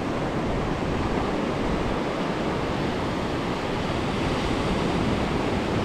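Ocean surf breaking and washing up a sandy beach: a steady rushing noise, with wind buffeting the microphone.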